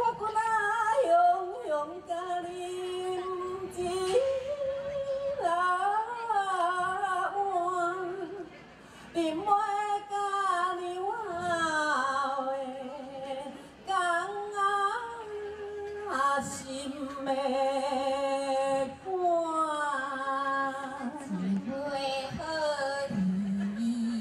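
A woman singing a Hengchun folk song in Taiwanese Hokkien through a microphone and PA, in long held notes that waver and slide between pitches, with brief breaths between phrases.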